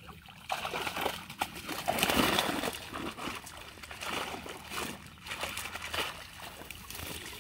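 Water splashing and streaming off a cast net as it is hauled out of a pond with a catch of fish, irregular sloshing and dripping that starts about half a second in and is loudest about two seconds in.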